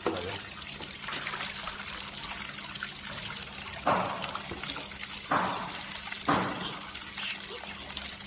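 Water sloshing and splashing in a steel basin as gloved hands scrub the fur off small scalded carcasses, with three louder splashes about four, five and six seconds in.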